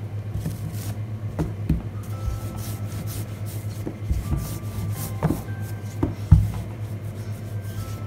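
Rolling pin working puff pastry dough thin on a floured tabletop: soft rubbing strokes, with a few short knocks of the pin against the table, the loudest about three-quarters of the way through. A steady low hum runs underneath.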